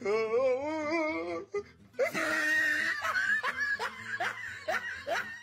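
A person laughing off camera: a wavering, drawn-out laugh, then after a short gap a run of short bursts of laughter.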